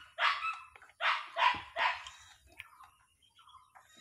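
A dog barking, four sharp barks in the first two seconds, then quiet.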